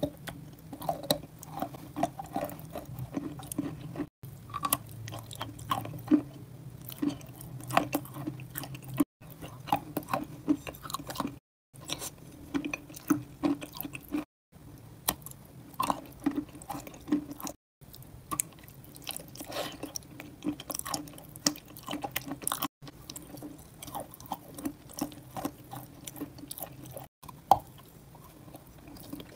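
Close-miked chewing of a soft, creamy dessert: sticky, wet mouth clicks and smacks over a steady low hum, breaking off into brief silences several times.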